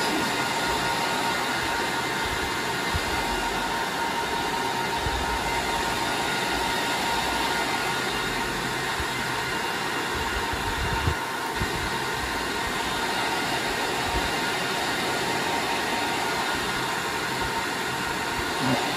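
Cooling fans of rack-mounted enterprise network and server gear running steadily: a constant rush of air with a steady high whine on top. A few soft knocks from handling the cables, one of them about eleven seconds in.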